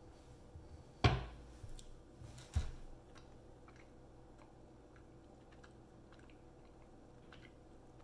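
A knife cuts through a wedge of hard Parmesan-style cheese, knocking sharply on the cutting board about a second in and again a moment later. Then comes faint chewing of the cut piece.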